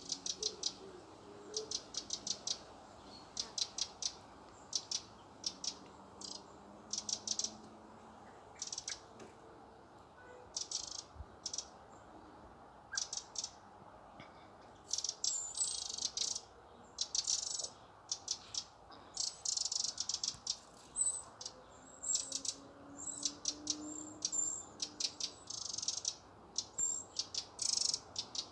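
Wrens giving dry, rattling churr calls: repeated short bursts of rapid ticks, some in quick runs, with longer, buzzier bursts in the second half.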